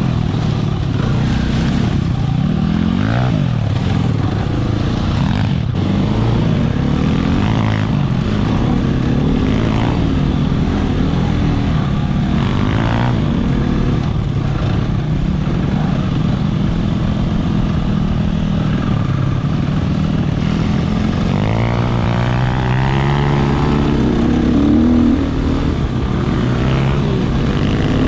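Dirt bike engine heard from the rider's helmet, revs rising and falling over and over as the throttle is worked along the trail, with a longer climb in revs about three quarters of the way through.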